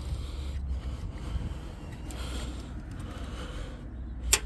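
Faint scraping and handling sounds as the chain-tension knob on a Bauer 20 V cordless 10-inch chainsaw is turned to take up a sagging, slack chain, over a low steady rumble, with one sharp click near the end.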